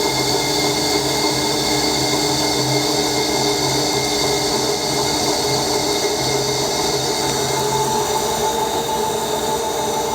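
CNC machine running steadily, a high spindle whine over a constant machining noise.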